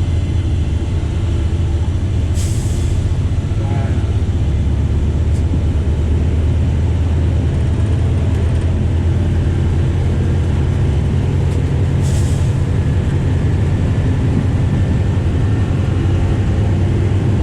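Diesel locomotive running steadily as heard from its cab, a deep continuous drone. Two short hisses cut in, about two and a half seconds in and again about twelve seconds in.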